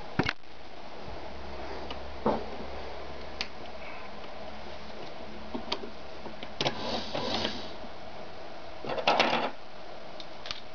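Scattered clicks, knocks and rustles of hands handling and setting up a vintage Ideal 730 sewing machine, not yet stitching, over a low hum that stops about seven and a half seconds in.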